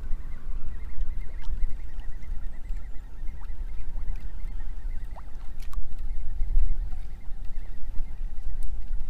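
Wind buffeting the microphone in uneven gusts, with faint scattered ticks and water lapping at the pontoon.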